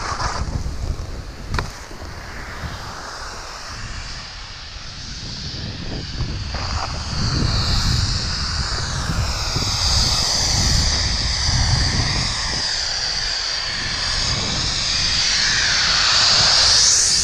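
Snowmaking gun blowing: a high, hissing whine that comes in about seven seconds in and grows louder as the skier closes on it, rising in pitch near the end. Wind rumbles on the microphone and skis hiss over snow underneath.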